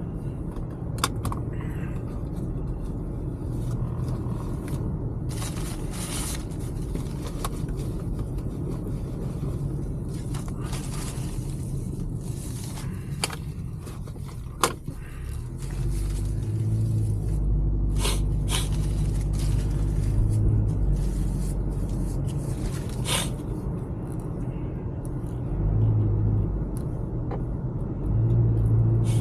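A motor vehicle running with a low rumble that swells several times, louder from about halfway through and again near the end, with scattered clicks and scrapes over it.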